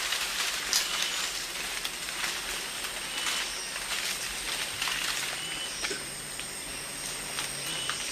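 Rainforest ambience: a steady high insect whine with short high chirps, over a hiss broken by scattered crackles and rustles.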